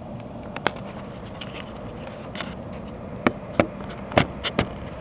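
A handful of sharp clicks and knocks from a camcorder being handled and set down, one about a second in and a quick cluster in the second half, over a steady background hiss.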